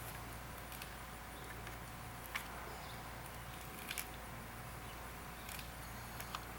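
A few faint clicks and taps from handling a homemade slingshot rifle while loading a ball into it, the sharpest about two and a half and four seconds in, over a steady low background hum.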